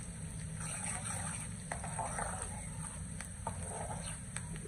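Sliced onions sizzling in hot oil as they fry toward light brown for a tadka, with scattered sharp crackles and pops, stirred with a slotted metal spoon.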